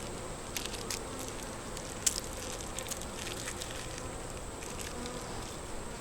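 Honey bees buzzing around an opened hive: a steady hum, with single bees passing close now and then. A few light clicks and knocks of hive parts being handled, the sharpest about two seconds in.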